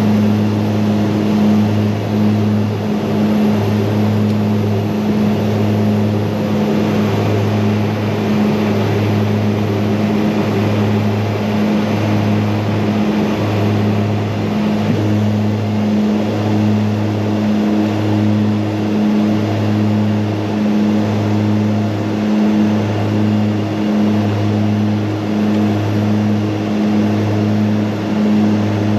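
Twin Garrett TPE331 turboprop engines and propellers of a Mitsubishi MU-2 in flight: a steady low drone that swells and fades in a regular beat about once a second.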